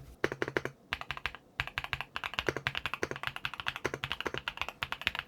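Typing on a Yunzii B75 Pro Max 75% mechanical keyboard: a short burst of rapid keystrokes, a brief pause about a second in, then fast continuous typing.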